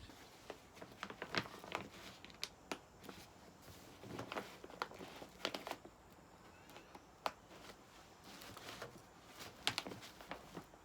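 Irregular light clicks, taps and crinkling rustles, coming in small clusters.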